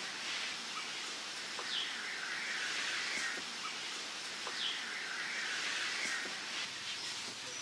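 Forest ambience: a bird gives a short falling call twice, about three seconds apart, among softer chirping, over a steady high hiss. A few faint light ticks can be heard along with it.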